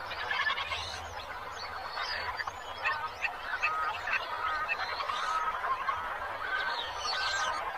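Tropical forest ambience: several birds calling over one another, with short chirps, rising and falling arcs and brief whistled notes, over a steady background hiss.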